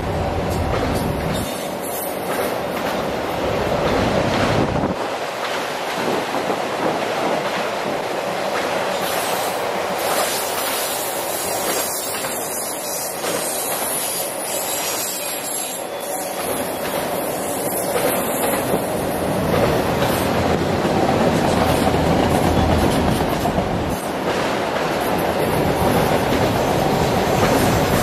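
A long train of autorack freight cars rolling past at speed, its steel wheels rumbling steadily on the rails, with a thin high wheel squeal in the middle stretch.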